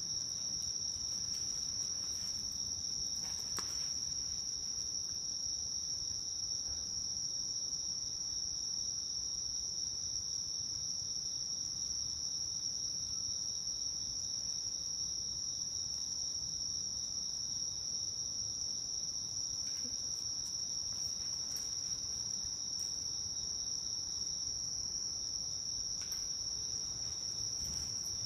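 Night insects singing in a steady, unbroken high-pitched chorus.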